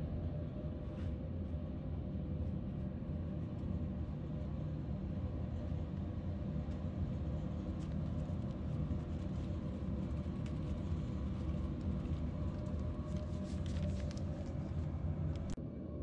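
Remko diesel space heater running just after start-up, its fan pushing a strong stream of air out of the round duct outlet: a steady low rumble.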